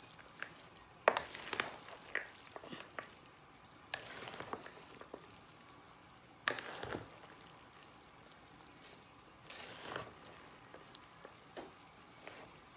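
A spoon stirring and folding chopped sisig with mayonnaise in a glass bowl: soft wet, crunchy mixing noise broken by a few short knocks and scrapes, the sharpest about a second in.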